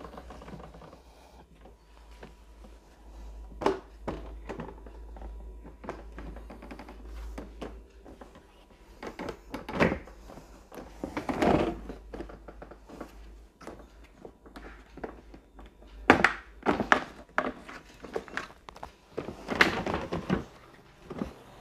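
Hollow plastic knocks and clicks of white stackable locker-box units being fitted together and pressed into place, coming at irregular intervals and louder and more frequent in the second half.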